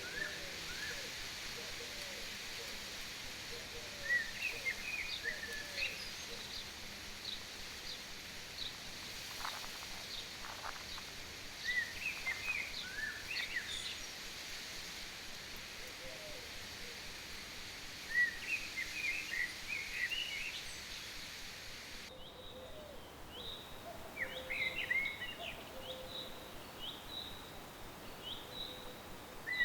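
Small birds chirping in short, scattered bursts of quick notes over a steady outdoor background hiss.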